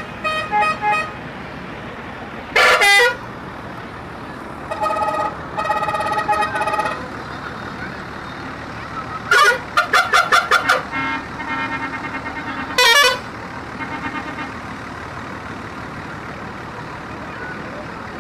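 Telolet horns on buses playing short multi-note tunes in several separate bursts. There are two louder short blasts, about three seconds in and again about thirteen seconds in, and a run of quick repeated toots around the ten-second mark.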